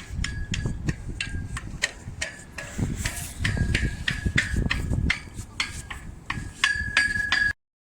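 Wind buffeting the microphone, with rapid, irregular metallic clinks that ring briefly after each strike; the sound cuts off abruptly near the end.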